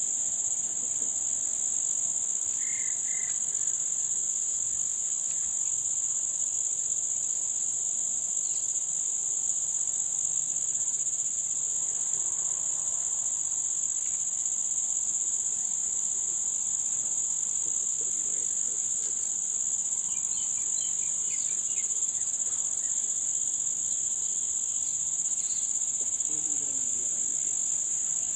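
A steady, high-pitched insect chorus that drones on without a break.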